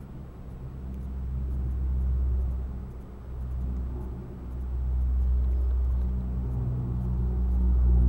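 Low engine rumble from a distant motor, swelling and fading twice with a steady low hum under it.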